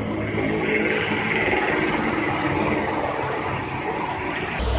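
A motor vehicle engine running steadily with a low rumble, growing louder and deeper near the end.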